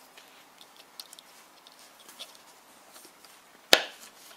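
Light scattered clicks and taps of a capacitor lead being worked into a plastic solderless breadboard with fingers and needle-nose pliers, then one sharp click near the end.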